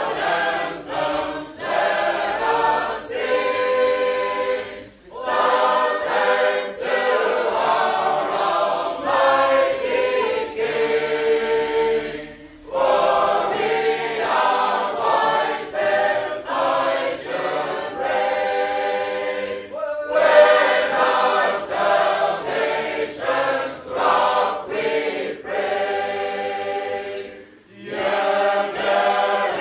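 A group of Sacred Harp shape-note singers singing a cappella in full harmony, with short breaks for breath between phrases about every seven seconds.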